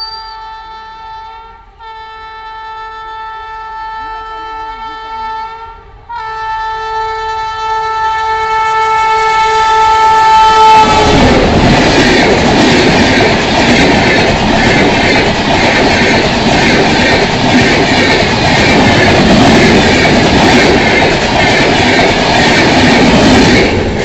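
WAP7 electric locomotive's horn blown in long continuous blasts, with two brief breaks, growing louder as the train approaches. About eleven seconds in the horn stops and the loud rush and clatter of the express passing close by takes over.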